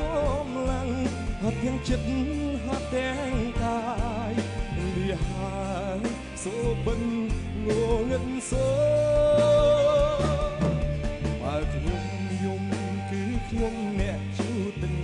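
A man singing a Khmer song live into a microphone over instrumental accompaniment with a steady bass line. His voice wavers with vibrato, and about halfway through he holds one long note.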